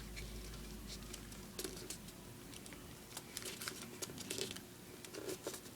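A sheet of origami paper being folded and creased by hand: scattered soft crinkles, rustles and light taps.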